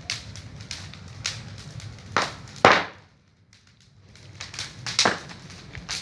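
Bonfire burning with a low steady rumble and loud, sharp cracks and pops, the loudest a little under three seconds in and another about five seconds in.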